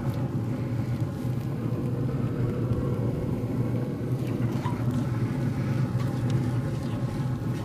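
Sliced ribeye with peppers and onions sizzling steadily in a cast iron skillet as it is stirred, over a constant low hum.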